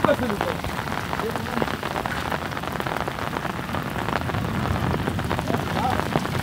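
Rain and hail falling, a dense, steady patter of many small hits.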